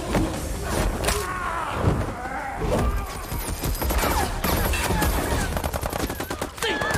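Film shootout sound effects: scattered gunshots and impacts, then a fast, even burst of automatic gunfire in the second half.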